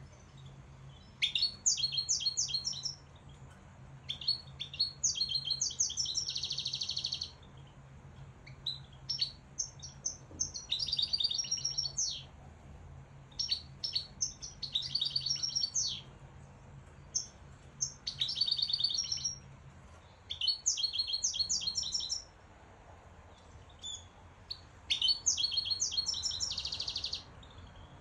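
A caged finch singing: about seven separate phrases of fast, high trills and twitters, each two to three seconds long with short pauses between. Several phrases end in a buzzy roll.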